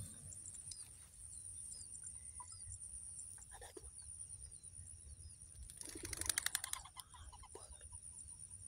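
Faint, scattered bird chirps over a steady high-pitched whine, then a short, loud flurry about six seconds in that fits a dove's wings clattering as it takes off.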